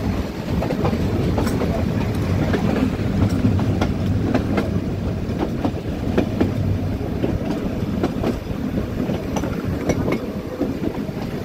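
Metre-gauge Nilgiri Mountain Railway coach running along the track: a steady rumble of wheels on rail with irregular clicks and knocks about once or twice a second, heard from the open coach window.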